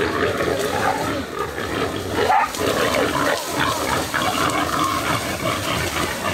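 Wild boar squealing and grunting in a struggle with pig-hunting dogs.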